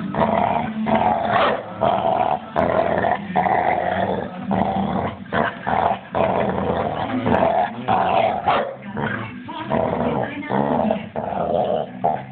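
Pit bull growling in rough play while mouthing a person's hand, a string of throaty growls broken by short gaps every second or so.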